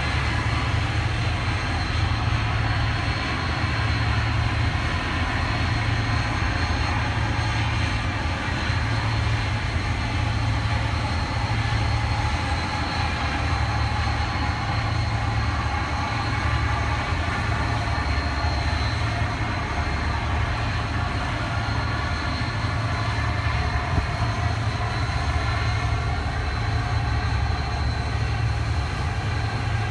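Steady low rumble and rushing noise on the deck of a river cruise ship underway: engine drone mixed with wind and water.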